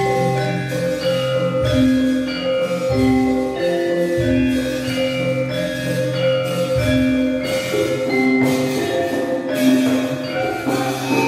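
Javanese gamelan playing dance accompaniment: bronze metallophones strike a ringing melody over longer held lower notes.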